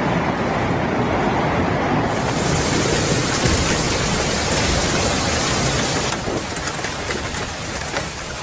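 Steady, loud storm noise of rain and wind, changing abruptly about two seconds in and again about six seconds in.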